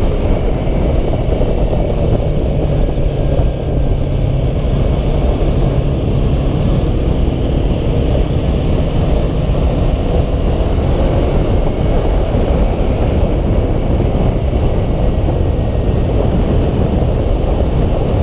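Yamaha R3 motorcycle's parallel-twin engine running steadily at cruising speed, heard from the bike with heavy wind rushing over the microphone.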